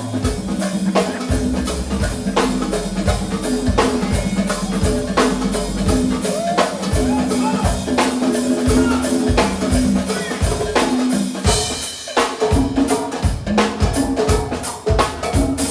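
Go-go style music: a drum and percussion groove with congas playing over a bass line.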